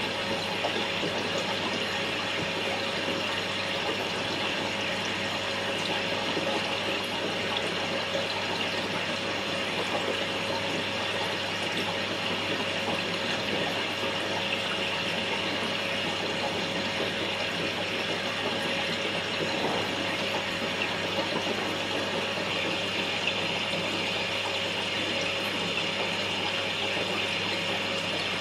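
Aquarium filter running: a steady rush of moving water with a low hum beneath it.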